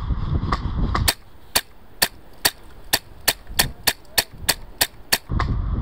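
Airsoft gun firing about a dozen single shots, roughly three a second, as sharp snapping clicks. Wind rumbles on the microphone before the shots start and after they stop.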